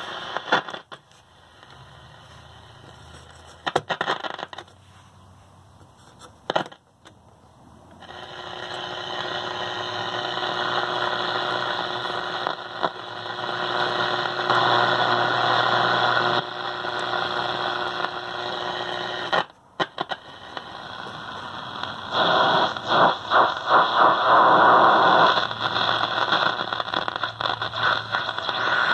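Static, hiss and crackle from a 1950 Zenith Trans-Oceanic G500 tube shortwave receiver as it is tuned between stations, with no programme coming through. A few sharp clicks come in the first seven seconds as its band-selector push buttons are pressed, and a steady low whistle sits under the static for about ten seconds in the middle.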